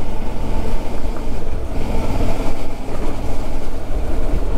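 Adventure motorcycle riding along at about 40 km/h. The engine runs steadily under a dense rush of wind noise on the handlebar-mounted microphone.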